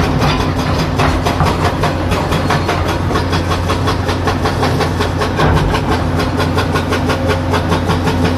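Komatsu PC200-7 excavator's six-cylinder diesel engine running steadily, with a fast, even clatter.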